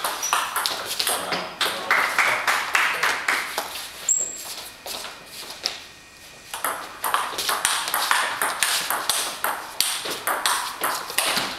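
Table tennis ball clicking fast back and forth between the bats and the table during a rally. The hits thin out for a couple of seconds around the middle, then pick up again.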